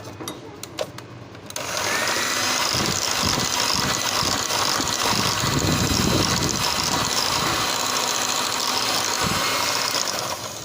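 Electric mixer beating cake batter of oil, sugar, eggs and vanilla: it starts about a second and a half in, runs steadily for about eight seconds and stops just before the end.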